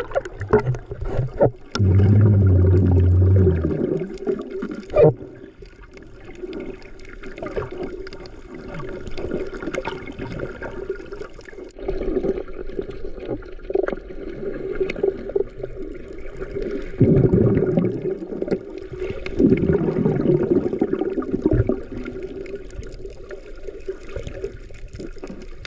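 Seawater sloshing and gurgling close to the microphone over a steady low hum, with scattered clicks and knocks and a loud low rumble a couple of seconds in.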